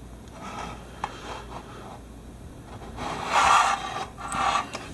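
Metal radio chassis of a 1948 Crosley 58TW sliding and scraping on a wooden workbench as it is turned around by hand: a click about a second in, then three louder rubbing scrapes in the second half.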